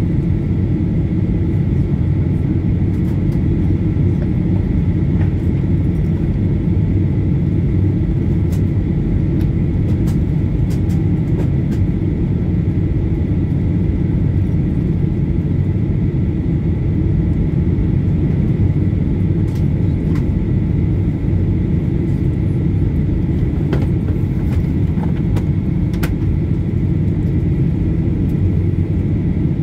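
Steady low roar of a Boeing 737-800 in flight, heard inside the cabin: its CFM56-7B engines and the airflow over the fuselage, with a faint steady whine above the roar. A few light clicks are scattered through it.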